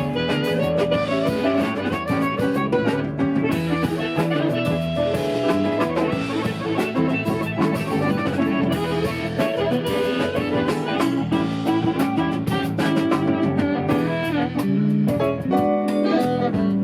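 Live band playing an instrumental passage of a song, with guitar over a drum kit keeping a steady beat.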